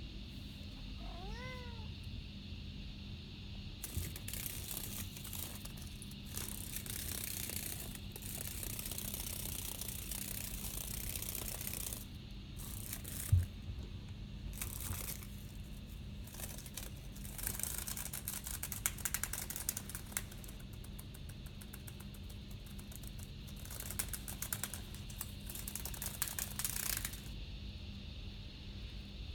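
A cat meows once about a second in. Then a cicada buzzes in harsh fits that start and stop again and again, with rapid pulsing stretches, falling silent near the end; a single thump comes about halfway through.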